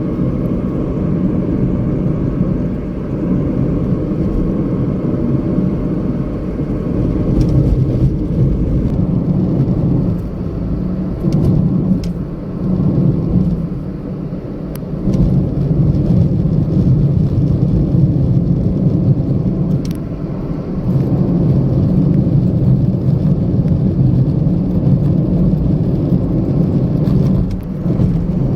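Steady low rumble of motor vehicle noise, with a few faint ticks.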